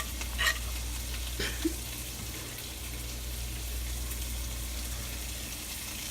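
Food frying in butter in a hot pan, a soft steady sizzle, with a few light clicks in the first two seconds and a steady low hum underneath.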